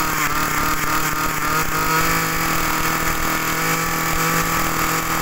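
Small brush cutter engine running steadily at an even speed, with an unchanging pitch.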